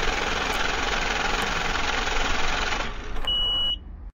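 Channel-logo sound effect: a dense mechanical rattling whir over a low rumble that stops after about three seconds, followed by a short high beep, then the sound cuts off.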